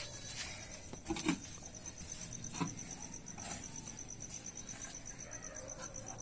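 An insect chirping in a rapid, even, high-pitched pulse, with a few scattered light knocks.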